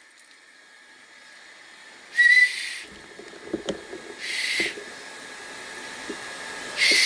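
A 3D-printed plastic pea whistle, its printed ball freed inside, blown in three short blasts about two seconds apart. The blasts are mostly airy hiss, the first opening with a brief clear high tone.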